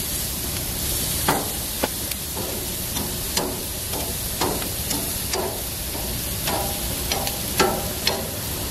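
Sliced zucchini, yellow squash and red peppers sizzling on a hot grill grate: a steady hiss with scattered sharp pops and crackles.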